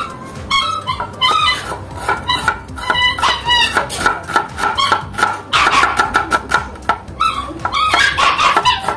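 Dogs whining and yapping over background music, with a knife chopping onion on a wooden cutting board.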